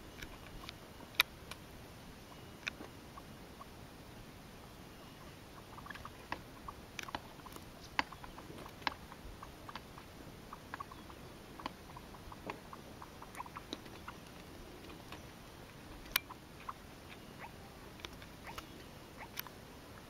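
Faint, irregular sharp clicks and ticks over a low steady hiss, thickest in the middle stretch, with two louder single clicks, one near the start and one near the end.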